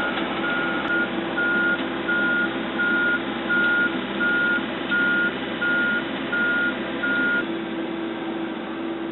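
Heavy machine's backup alarm beeping steadily at about one beep every 0.7 seconds over a running diesel engine. The beeping stops about seven seconds in while the engine keeps running.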